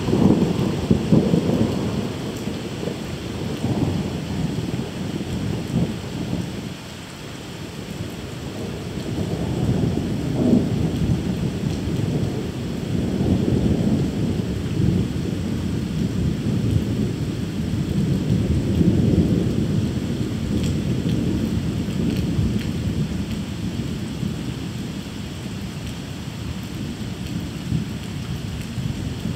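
Thunder rolling and rumbling in long waves over steady rain during a thunderstorm. The rumble is loudest at the start and again through the middle, then eases off toward the end.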